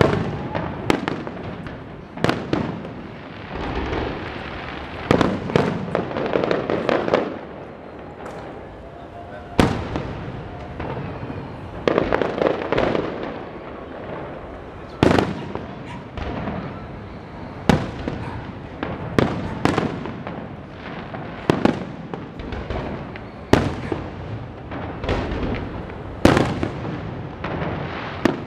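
Aerial fireworks shells bursting overhead: a long run of sharp booms at uneven intervals, some close together and some a few seconds apart, over a constant noisy din of smaller bursts.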